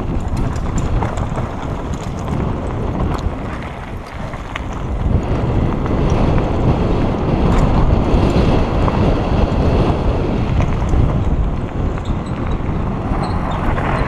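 Heavy wind buffeting on a helmet-mounted camera's microphone while riding a mountain bike fast downhill, mixed with the tyres crunching over loose gravel and light rattles from the bike.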